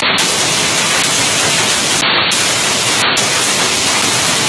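Hailstorm: hailstones falling on paved ground and parked cars, a loud, dense, steady hiss.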